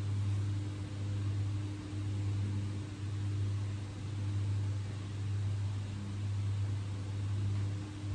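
A steady low hum that swells and eases about once a second, over a faint hiss.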